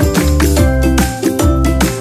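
Background music with a steady beat, a bass line and melodic instrumental notes.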